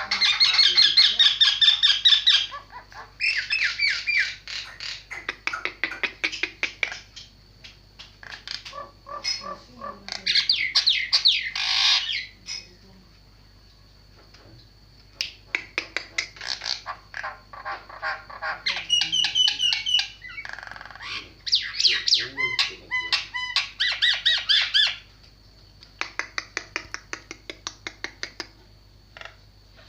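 Jalak penyu, a starling, singing in bouts of rapid, harsh chattering and squawking notes, each bout a few seconds long with short pauses between, over a faint steady high whine.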